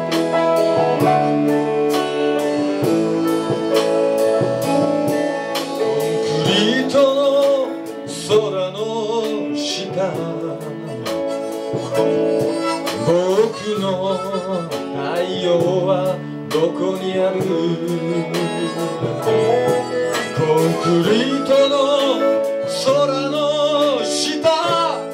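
Live band music: electric guitars and drums keeping a steady beat, with a blues harmonica played into a handheld microphone. From about six seconds in, the harmonica takes wavering lead lines.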